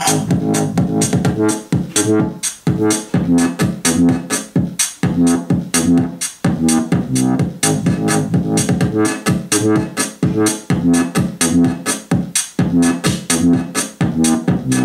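Bugani M99 small portable Bluetooth speaker playing electronic dance music with a steady beat, as a playback test of its bass and highs.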